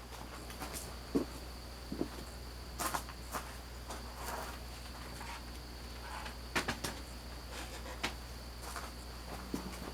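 Faint, irregular clicks and light taps, about a dozen scattered through, over a steady low hum and a thin, steady high-pitched tone.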